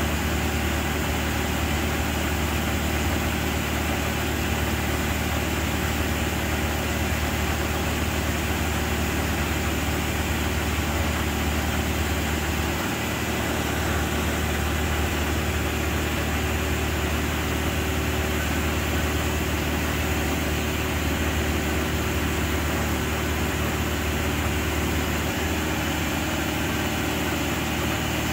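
Genie S-85 telescopic boom lift's engine running steadily at a low, even speed.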